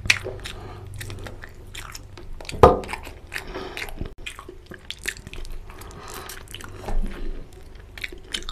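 Close-up eating sounds: a person chewing and biting on chicken and curried rice, with repeated crunches and wet mouth clicks. A single heavy thump about two and a half seconds in is the loudest sound.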